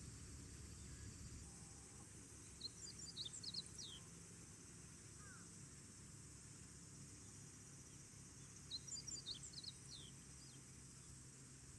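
A small bird sings the same short, quick twittering phrase twice, about six seconds apart, over a faint steady low outdoor background noise.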